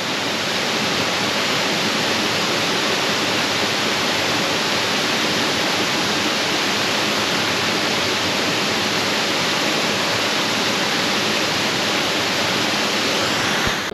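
Waterfall: a steady, even rush of falling water that cuts off suddenly at the end.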